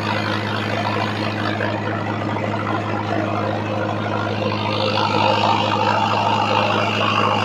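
Mahindra Arjun Novo 605 DI-MS 4x4 tractor's diesel engine running steadily under the load of an 8-foot Shaktiman rotavator tilling soil. It grows a little louder about five seconds in.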